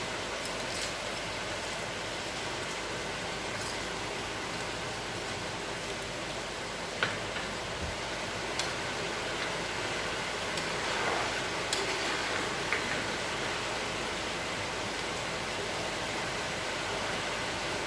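Coconut fish curry gravy boiling in a pot on a gas stove: a steady bubbling hiss, with a few light clicks of a spoon against the pot.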